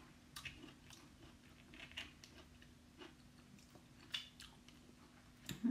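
Soft eating sounds of a whole cooked crab: chewing and sucking crab meat off the fingers, with small cracks and clicks as the crab shell is picked apart by hand. A faint steady hum runs underneath.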